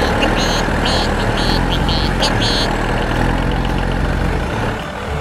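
Tractor diesel engine running steadily, a low drone that drops away about four and a half seconds in. Short high chirps sound over it in the first two and a half seconds.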